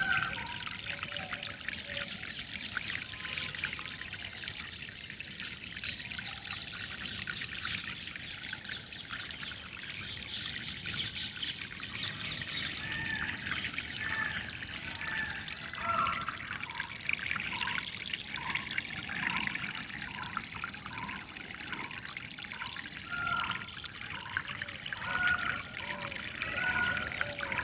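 Water trickling and flowing steadily, with birds calling over it. In the second half a bird repeats a short call about once a second.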